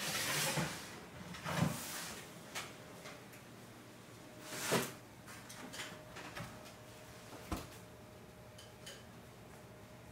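A gas oven door being opened and freshly baked bread being taken out: several separate clunks and knocks of the door and metal baking tray.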